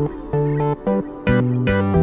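Background music: upbeat electronic track with plucked, guitar-like notes over a steady bass beat.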